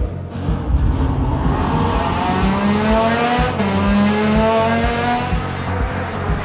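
The Alpine A110-50 concept car's V6 engine revving as the car accelerates, its pitch climbing steadily from about a second and a half in.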